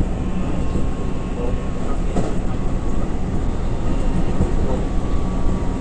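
Keihan 9000 series electric train running between stations, heard from on board: a steady rumble of wheels on the track, with a faint steady whine and one brief click about two seconds in.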